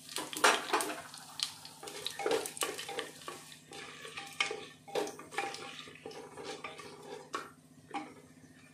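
Wooden spatula stirring and scraping against the bottom of an aluminium pressure cooker, irregular scrapes and light knocks, with whole spices and cumin seeds frying in oil underneath.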